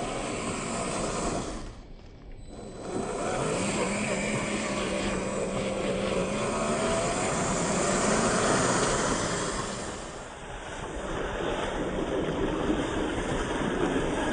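Electric RC crawler's brushed motor and geartrain whining while driving, over a steady rush of noise. The sound nearly stops about two seconds in, then the motor's hum rises and holds steady, with another brief lull near the end.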